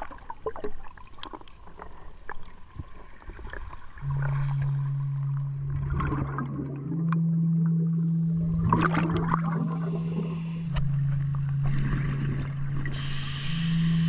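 Underwater ambience: scattered clicks and crackle, then gurgling bursts of bubbles about every three seconds. About four seconds in, a low sustained music drone enters and shifts between two low notes.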